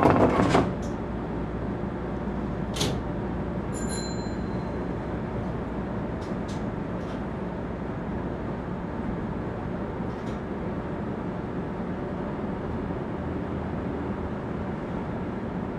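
Steady running noise of an electric commuter train, heard from inside at the front as it stands at the platform and then starts to pull away. There is a loud rush in the first half second, a few sharp clicks, and a brief high beep about four seconds in.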